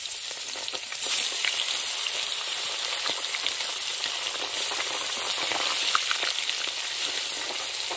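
Masala-coated fish frying in hot oil in a kadai: a steady sizzle with dense crackling, a little louder from about a second in.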